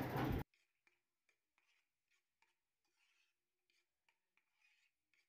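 Near silence: a brief noise in the first half second, then the sound drops out almost completely.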